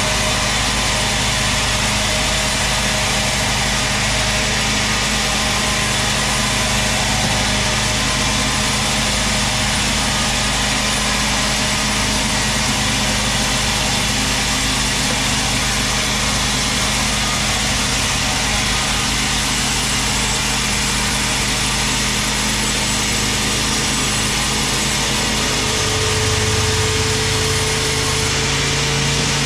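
Large sawmill band saw running steadily while it rips a big teak log, a constant machine hum under the hiss of the blade cutting through the wood.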